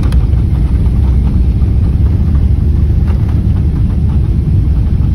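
Jet airliner heard from inside the passenger cabin during the landing rollout: a loud, steady deep rumble of engine noise and wheels running on the runway, with faint small rattles.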